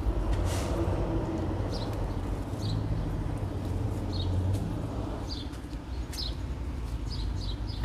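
Outdoor ambience: a steady low rumble with short, high bird chirps about once a second. Leaves rustle as amaranth plants are handled, with a brief rustle about half a second in.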